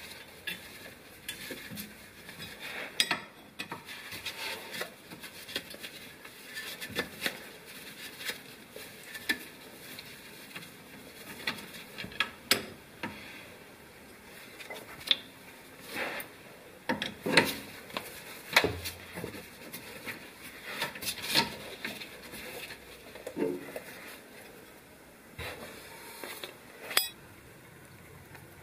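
Irregular metallic clicks and clinks of a wrench and steel plugs being worked loose from a rear differential housing, with a few sharper knocks standing out.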